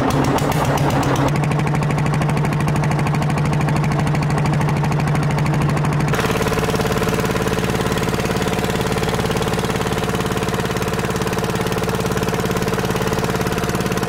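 A small boat's engine running steadily at speed, with a fast, even chugging; its note changes abruptly about six seconds in.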